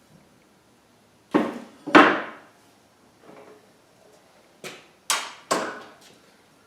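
Sharp knocks of tools and metal table parts being handled and set down during assembly: two close together, then three more about three seconds later.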